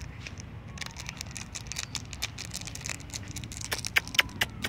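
Foil snack wrapper being crinkled in the hand: an irregular run of sharp crackles that gets busier near the end.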